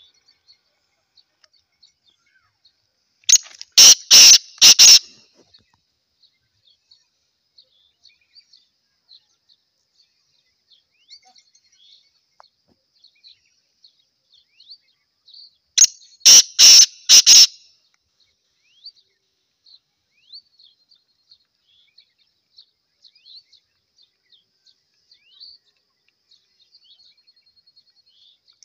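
Male black francolin calling: a loud, harsh call of about five clipped notes lasting about a second and a half, given twice about twelve seconds apart. Faint high chirps and ticks sound in between.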